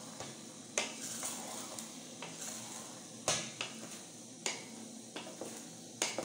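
A wooden spoon stirring and tossing wet spaghetti in a metal pot, knocking against the pot's side four times, over a steady hiss from the heating pot.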